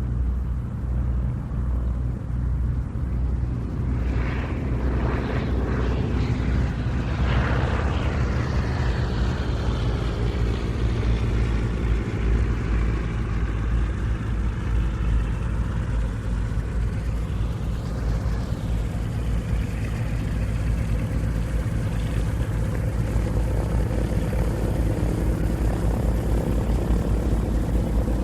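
Propeller airplane engines droning steadily, with a falling whine about four to nine seconds in as one passes by.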